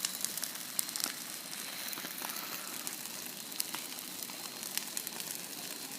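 Large bonfire burning: a steady hiss with scattered crackles and pops throughout.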